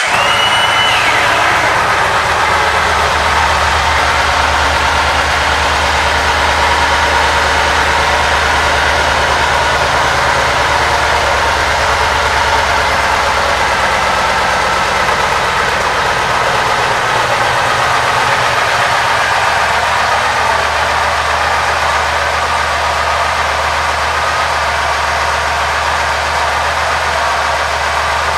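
A 2006 Yamaha Roadliner's 1854 cc air-cooled V-twin idling steadily.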